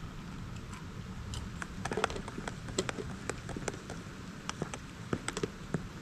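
Spoon clinking and scraping in a mug as hot chocolate is stirred: a run of light, irregular clinks starting about a second and a half in, over a steady low background rumble.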